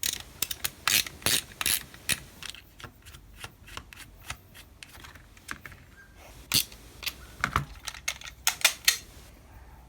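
Ratchet screwdriver clicking as a screw is backed out of a plastic toy revolver: many sharp, irregular clicks that stop shortly before the end.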